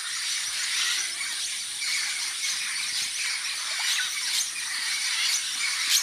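A large mixed flock of macaws and parrots screeching and squawking in a dense, unbroken chorus of many overlapping harsh calls, with a steady high whine underneath.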